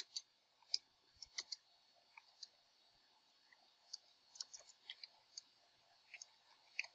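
Computer keyboard keys being typed, a faint, irregular run of short key clicks.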